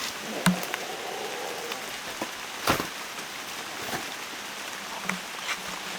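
Steady rain falling on forest foliage, an even hiss with a few sharp knocks scattered through it.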